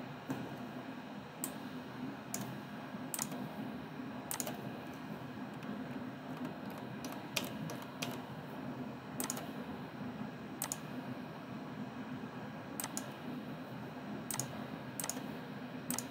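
Scattered clicks of a computer mouse and keyboard, a dozen or so at irregular intervals, over a steady low hum.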